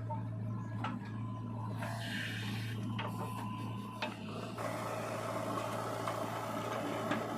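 Backhoe loader's diesel engine running with a steady low hum, with scraping and a few sharp clicks as sand is worked; the scraping grows denser about halfway through.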